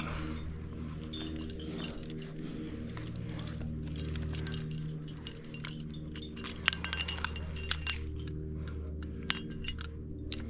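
Metal carabiners and quickdraws clinking and jingling on a climbing harness: light, ringing metallic clinks that come thicker from about four seconds in, over a steady low hum.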